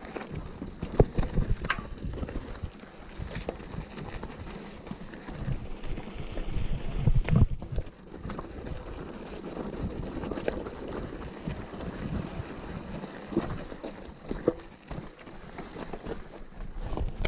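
Mountain bike rolling over a rough dirt trail: tyre rumble with frequent knocks and rattles from the bike, under wind buffeting the action camera's microphone. It gets rougher for a couple of seconds around the middle.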